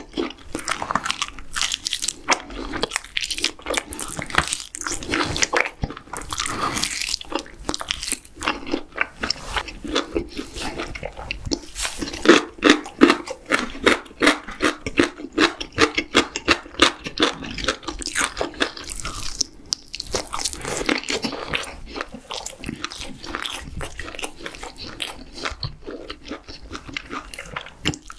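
Close-miked eating sounds: continuous chewing and biting, first of meat gnawed from a tomahawk steak bone and then of sausage, with a bite into radish kimchi at the very end.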